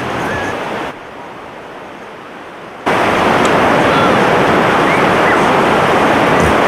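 Ocean surf and wind on the microphone: a steady rushing noise. It drops lower about a second in, then comes back much louder about three seconds in, with a few faint high chirps over it.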